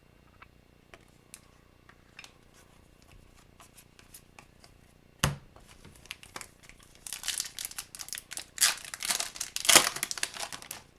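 Foil wrapper of a 2022-23 Upper Deck Series 1 hockey card pack being torn open and crinkled, loudest in the last few seconds. Before that come a few light clicks of card handling and one sharp knock about halfway through.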